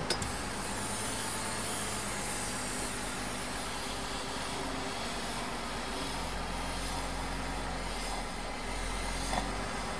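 Jeep Wrangler JK's 3.6-litre V6 idling steadily while Seafoam is sucked into the intake manifold through the disconnected brake booster vacuum line, which makes the engine idle funny. A short click just after the start.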